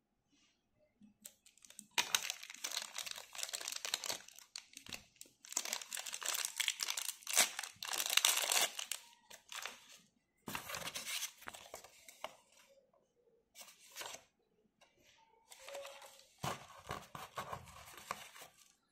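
Plastic packaging crinkling and tearing as it is pulled open by hand, in long bursts over several seconds, followed by shorter bouts of packaging rustle.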